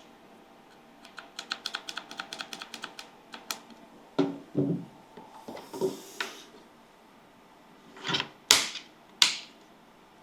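Speaker box and packaging being handled during unboxing. A quick run of small clicks lasts about two seconds, then come a few low knocks and a rustle, and near the end two or three sharp swishing scrapes.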